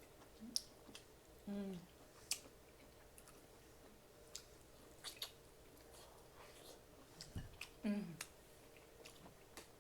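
A person chewing and eating close to the microphone, with scattered small wet clicks and lip smacks, and a hummed "mm" of enjoyment twice.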